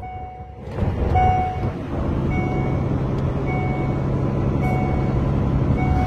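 Volvo truck's seatbelt warning chime beeping about once a second over the steady drone of the diesel engine in the cab. The belt is fastened, so the chime is a false seatbelt warning, a seatbelt sensor error.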